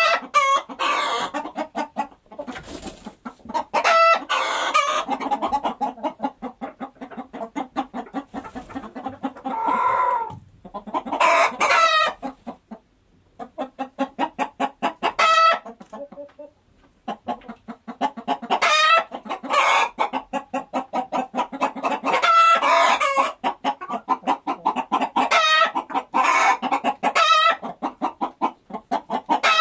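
Chickens clucking and squawking in quick repeated runs, with louder drawn-out calls every few seconds and a few short pauses between the runs.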